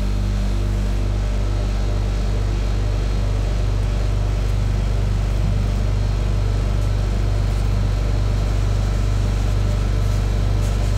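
Steady low hum of a rolled-ice-cream cold-plate machine's refrigeration unit running.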